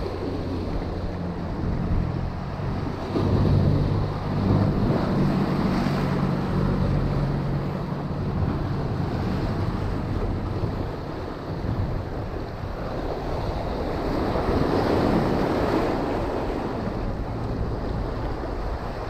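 Ocean surf breaking and washing over shoreline rocks, with wind rumbling on the microphone. A louder wave wash swells up about three-quarters of the way through.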